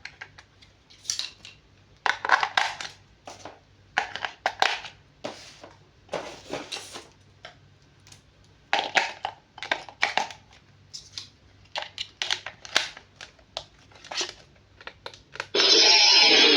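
Toy packaging being handled and opened: plastic and cardboard crinkling and rustling in short, irregular bursts. Loud guitar music cuts in suddenly near the end.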